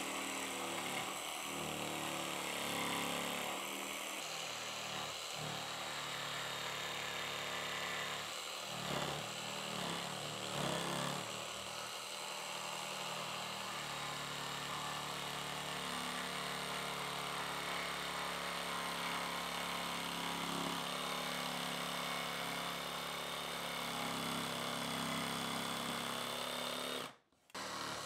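Cordless jigsaw sawing through thick plywood, its motor and blade running steadily as it cuts out the opening for a sink. There are a few louder knocks in the middle, and it stops for a moment near the end.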